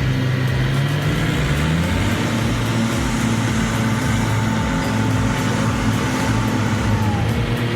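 Heavy diesel engine of a working machine running steadily; its pitch drops a little about two seconds in and then holds.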